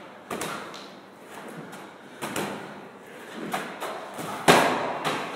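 Medicine balls thudding against a brick wall during repeated wall-ball throws, a thud every second or two, the loudest near the end.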